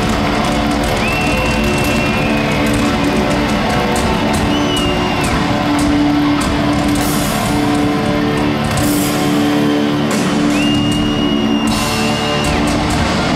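Heavy metal band playing live in an arena, heard loud from within the crowd: distorted guitars and steady sustained chords under a run of long held high lead notes, each bending down as it ends.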